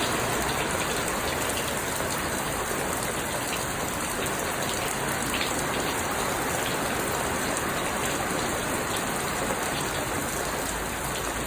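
Steady rain falling, with faint individual drop ticks here and there.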